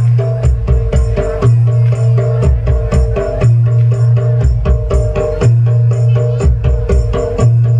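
Bantengan accompaniment music played live: fast drum strokes over repeating metallophone notes, with a strong low booming tone that sounds in blocks of about a second.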